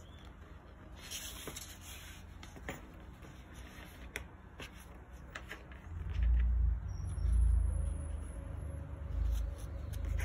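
Polyester webbing strap rustling and a metal ring clicking faintly as hands thread the strap through the ring and fold it. From about six seconds in, a louder low rumble takes over.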